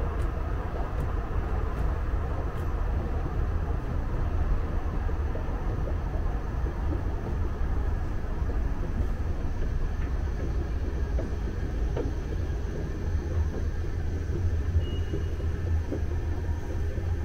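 Steady low mechanical rumble of a running escalator and underground metro-station machinery, with a few faint clicks.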